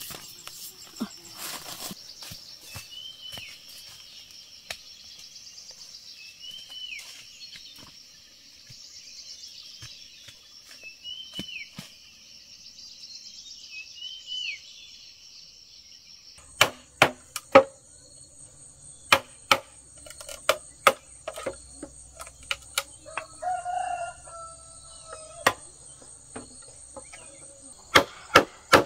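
Insects droning with a bird giving a short call about every two seconds. After a sudden change in the background, sharp knocks come in irregular bursts, and a rooster crows briefly in the middle of them.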